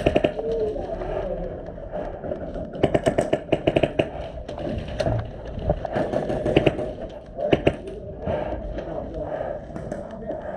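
Airsoft guns firing in rapid bursts of sharp clicks, with voices of other players in the background.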